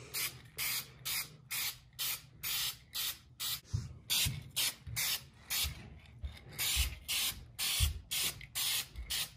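Aerosol spray paint can (Dupli-Color) spraying paint onto an engine valve cover in short, quick bursts of hiss, about two to three a second.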